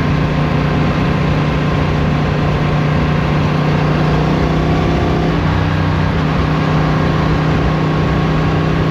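Motorcycle engine running steadily at road speed, with wind and road noise. Its note changes about five seconds in.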